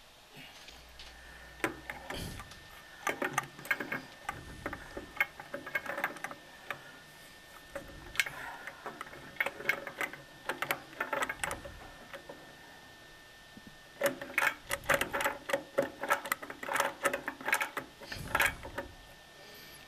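Basin wrench tightening the supply-line nut on a faucet's threaded shank under a sink. Quick runs of metallic clicking and rattling come as the jaw grips, turns and is reset, in three spells with short pauses between.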